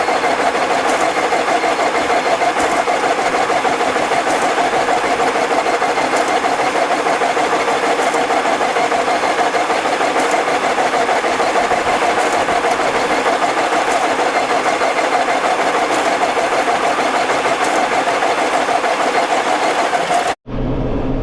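Tractor engine running steadily under load while pulling a Massey Ferguson 1840 small square baler through the hay, with faint regular clicks every couple of seconds. The sound cuts off abruptly near the end.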